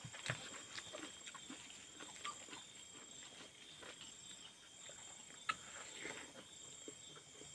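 Close-up eating sounds: chewing and lip-smacking with a full mouth, and small clicks of fingers scooping rice from a steel plate, one sharper click about five and a half seconds in. A faint steady high tone runs underneath.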